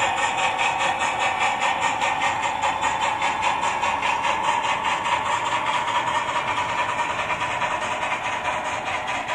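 HO-scale model train of vans and passenger coaches rolling past on the track, with a steady, fast rhythmic beat that fades a little toward the end.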